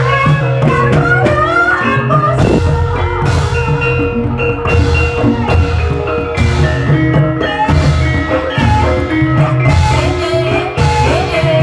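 Ebeg dance accompaniment music played loud through loudspeakers: held pitched notes and a wavering melody over a steady drum beat.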